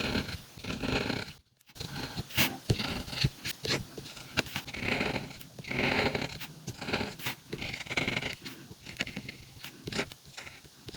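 Calligraphy pen scratching across paper while letters are written, in a series of strokes of about a second each, with light ticks between them.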